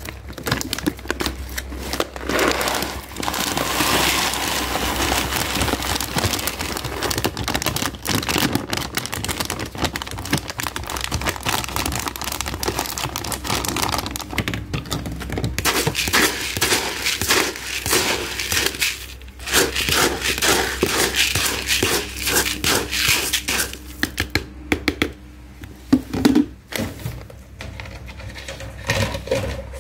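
Plastic kibble bag crinkling while small dry kitten kibble (Royal Canin Mother & Babycat) pours and rattles into a plastic tub, a long dense rattle with a brief letup partway through. Near the end it gives way to a few separate knocks from handling the bag and tub.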